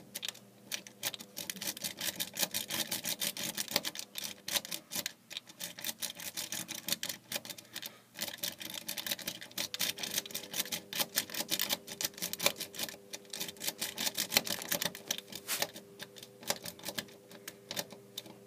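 Metal lock pick scraping and clicking against the pins inside a five-pin euro cylinder lock, a rapid, uneven run of small clicks as the pins are worked.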